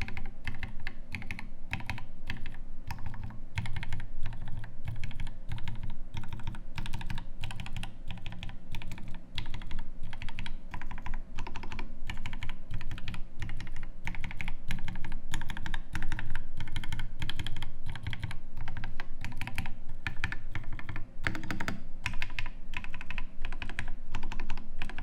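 Typing on a custom mechanical keyboard with an aluminium case, brass plate and brass weights, fitted with lubed and filmed Alpaca linear switches and GMK keycaps. It is a steady, fast run of keystrokes.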